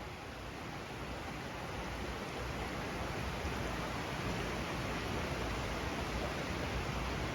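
Steady rushing of a woodland brook flowing over rocks, growing gradually louder.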